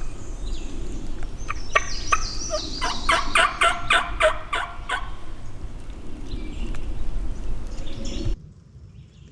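Eastern wild turkey gobbling: a rapid rattling call about two to five seconds in, over a low rumble that cuts off suddenly just after eight seconds.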